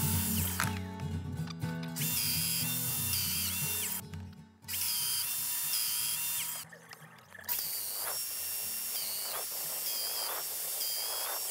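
Festool Domino joiner running and plunging into mahogany to cut mortises. Its motor whine dips in pitch and recovers at each plunge. The motor stops and restarts twice.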